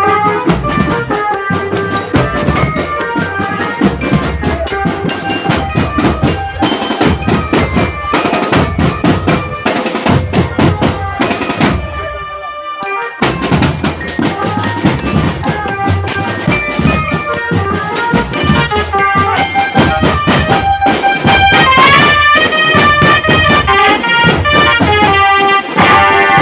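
Indonesian drumband playing: marching drums with a melody on mallet bells, briefly thinning out about twelve seconds in.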